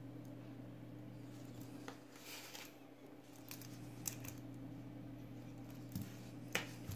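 Stainless steel watch bracelet clicking and clinking as the watch is handled and set down on a table: a handful of sharp metallic clicks, the loudest near the end, with a short rustle a little past two seconds in. A steady low hum runs underneath.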